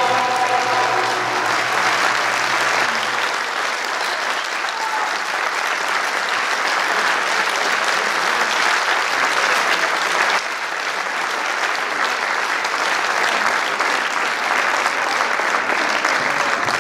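Audience applauding steadily, with the last sung chord of the choir and instruments dying away in the first second.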